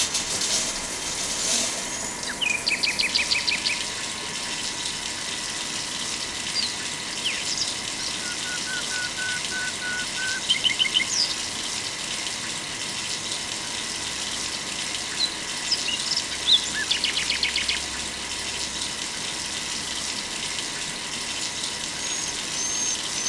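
Small birds chirping, with short bursts of rapid high trills repeating every several seconds, over a steady rushing hiss and a faint steady tone.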